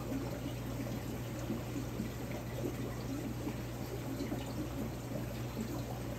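Water in a large overflow aquarium running and bubbling steadily, with a steady low hum underneath.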